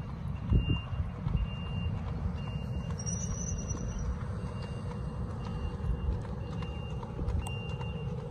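Vehicle reversing alarm beeping steadily, short high beeps about once a second, over a low rumble.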